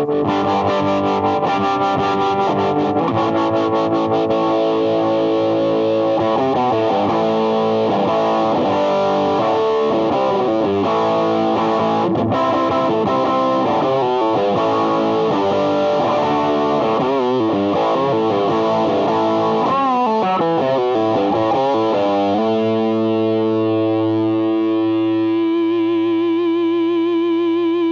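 Background music: a distorted electric guitar playing a rock riff, ending about three-quarters through on a long held chord that wavers in pitch.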